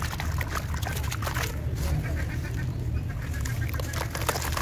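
Wet sand-cement slabs being squeezed and broken apart by hand in a tub of water: squelching, sloshing and many small crackles as the soaked chunks crumble.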